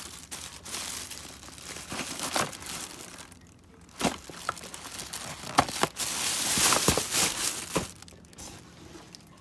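Crinkling and rustling of packaging being handled, with a few sharp clicks and knocks, fading near the end.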